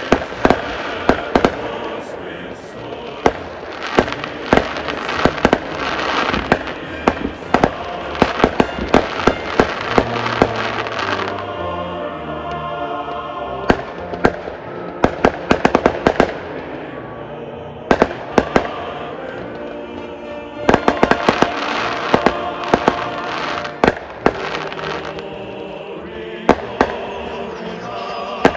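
Professional fireworks going off in rapid, irregular volleys of sharp bangs. The bangs thin out twice in the middle, where live band music can be heard.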